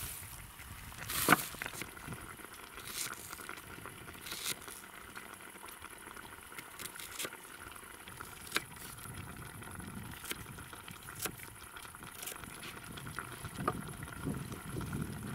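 Meat frying in oil in a pan over a small wood-fired camp stove: a steady sizzle with scattered sharp pops, one louder about a second in.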